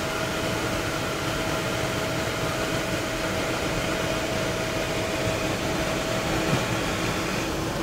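Steady drone of an aircraft's engines and air systems heard inside the cockpit, an even rush with a faint steady hum in it.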